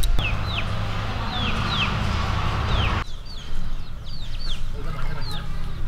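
Birds chirping: repeated short, falling chirps, a few each second, over a steady low hum that drops away abruptly about three seconds in.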